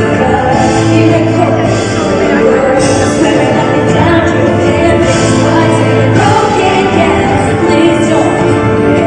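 Live amplified music in a large hall: a slow pop ballad played through the PA, with a high accent about once a second.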